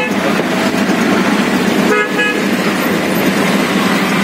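Vehicle horns toot twice in street traffic, briefly at the start and again about two seconds in. Under them runs the steady drone of the auto-rickshaw's engine and the road noise.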